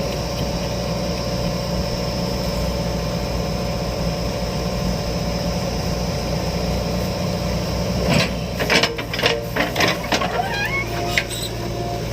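Diesel engine running steadily, with a burst of knocks and clanks between about eight and eleven seconds in.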